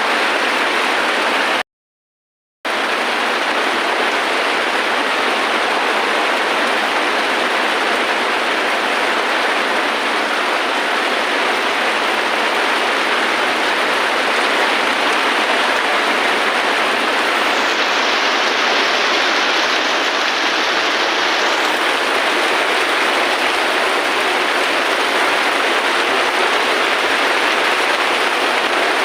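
Steady heavy rain, an even unbroken hiss. About two seconds in it cuts out to dead silence for about a second, and for a few seconds past the middle it sounds slightly duller.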